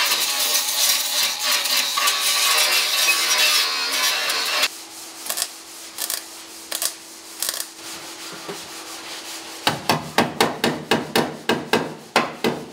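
Angle grinder rasping loudly as it grinds down welded seams on a steel car body panel, cutting off about five seconds in. Then a MIG welder crackling in short tacks over a faint steady hum. Near the end a hammer strikes the metal bodywork in a fast run of about five blows a second.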